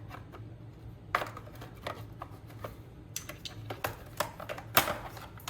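Scattered clicks and light knocks of parts and clips being handled while the cooling housing of a GY6 scooter engine is taken apart, the loudest knock near the end, over a steady low hum.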